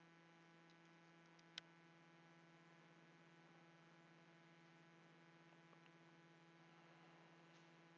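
Near silence with a faint steady electrical hum, and one small click about a second and a half in.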